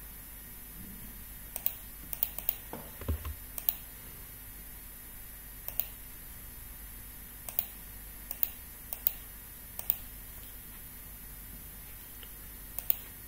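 Computer mouse and keyboard clicks: about a dozen short, sharp clicks at uneven intervals over a faint steady hum, with a soft low thump about three seconds in.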